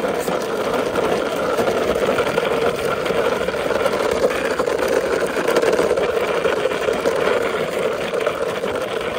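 Plastic wheels of a toy car rolling over rough concrete and brick as it is pushed by hand, a steady rumbling rattle with no pauses.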